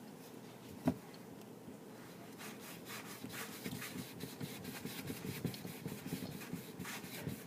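A single sharp knock about a second in, then a quick run of scraping strokes from about two and a half seconds on, like something rubbed against a wooden surface during kitchen prep.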